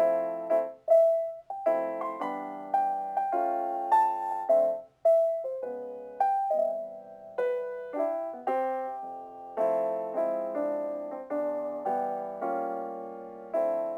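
Gentle solo piano background music, chords and single notes struck and left to fade.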